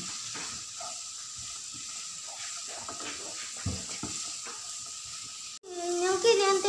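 Sliced onions sizzling as they fry in a nonstick kadai, stirred and scraped around the pan with a wooden spatula. About five and a half seconds in, the frying cuts off and a singing voice takes over.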